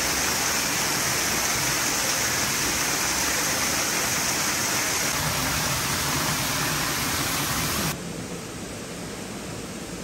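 Waterfall splashing with a steady rush of falling water. About eight seconds in it cuts off suddenly, leaving a quieter steady hiss.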